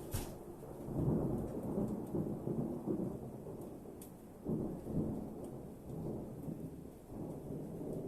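Distant thunder rumbling in rolling waves, swelling about a second in and again past the halfway point before dying down.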